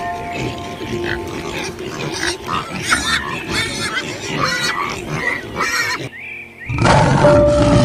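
Pigs grunting and squealing in quick, overlapping short calls. After a brief lull about six seconds in, a loud rushing noise starts.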